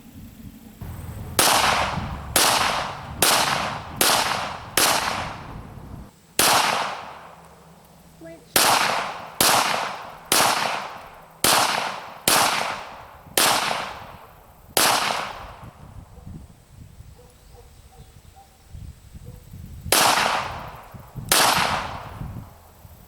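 Pistol shots from a SIG Sauer P320 X5 Legion 9mm: fifteen shots at roughly one a second, each a sharp crack with a short fading echo, with a pause of about five seconds before the last two.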